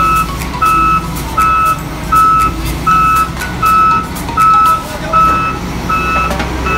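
Heavy-machine back-up alarm beeping steadily, one beep roughly every three-quarters of a second, over the low running of a diesel engine.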